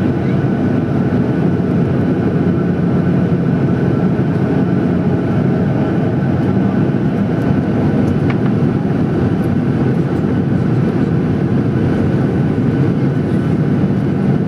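Steady cabin noise inside a Boeing 737-800 in flight: the jet engines and the airflow over the fuselage make an even rumble, with a faint steady whine above it.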